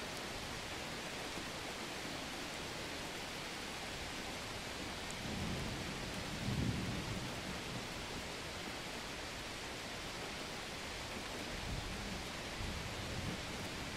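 Mountain outdoor ambience: a steady rushing noise, with a low rumble that swells about six seconds in and returns more weakly near the end.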